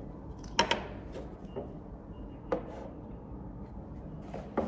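Hands handling things on a desk: a few sharp taps and knocks, a quick double knock about half a second in, then single ones, the loudest about two and a half seconds in.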